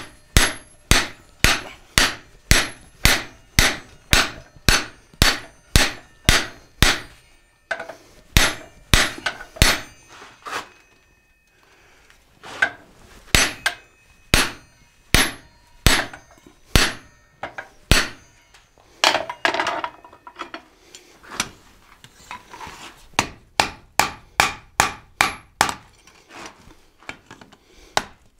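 Hand hammer striking red-hot leaf-spring steel, steady sharp blows about two a second, with a pause about eleven seconds in. Scraping between blows around twenty seconds in, then quicker blows on the anvil near the end.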